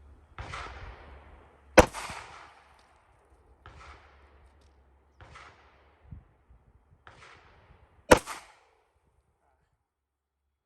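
Two handgun shots about six seconds apart, fired strong-hand only in a slow-fire drill, each a sharp crack with a short tail. Several fainter short noises fall between them.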